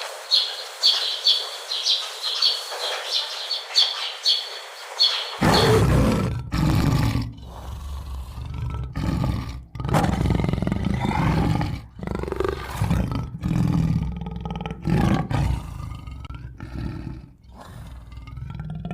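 A bird chirping rapidly over and over, then, about five seconds in, a long run of loud big-cat roars and growls, one after another with short breaks.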